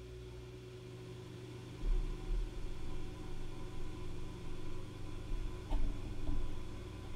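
Kokoni EC2 mini 3D printer's motors driving the print head and axes through its start-up setup and calibration routine: an uneven low mechanical rumble that starts about two seconds in, over a steady hum, with a couple of light clicks near the end.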